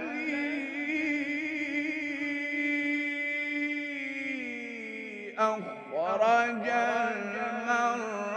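Male Quran reciter chanting in the tajwid style. He holds one long, ornamented note for about four seconds, glides down in pitch, then starts a fresh wavering melismatic phrase.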